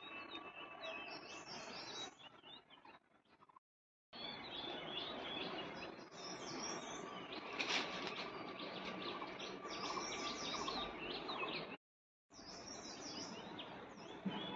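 Wild songbirds chirping and calling over and over in woodland, many short quick notes overlapping. The sound cuts out abruptly twice for about half a second.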